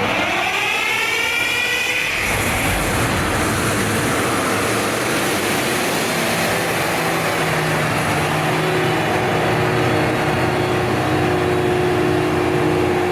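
Caterpillar G3512 V12 gas engines driving standby generators, coming up to speed with a rising whine over the first two seconds, then running steadily and loud.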